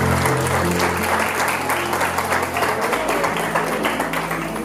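Audience applause carrying on as the recorded waltz music starts, opening with deep sustained notes for about the first three seconds, then lighter notes over the clapping.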